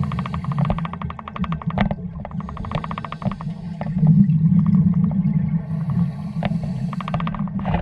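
Scuba regulator breathing heard underwater: three bouts of crackling exhaust bubbles, the last near the end, over a steady low rumble.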